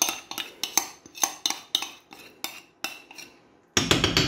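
Metal spoon scraping and tapping against a glass bowl, knocking pecorino cheese paste out into a pan of spaghetti: a run of sharp clinks about three a second, then a louder, denser clatter near the end.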